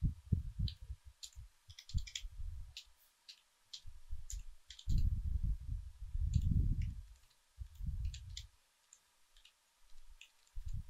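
Computer keyboard keys clicking irregularly as a command is typed, single keystrokes with short pauses between. Low muffled rumbling bumps come and go underneath, loudest about five to seven seconds in.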